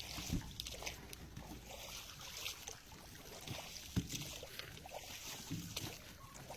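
Water sloshing and splashing, with irregular knocks and clicks, the sharpest about four seconds in.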